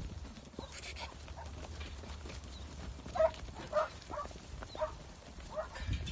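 A flock of ewes moving about in a yard pen, hooves shuffling and clicking on the ground. About halfway through come five or six short animal calls.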